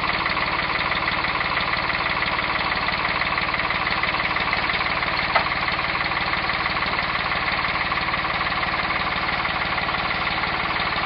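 Farm tractor engine running steadily at low speed. A single sharp click about five seconds in.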